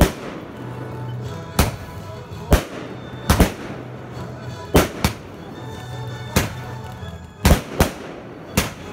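Fireworks bursting in the air: about ten sharp bangs at irregular intervals, some in quick pairs, over a steady low hum.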